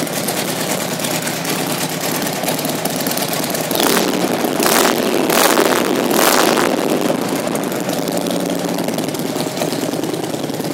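2006 Harley-Davidson Road Glide's Twin Cam 88 V-twin idling through aftermarket exhaust pipes, steady, growing louder for a few seconds in the middle.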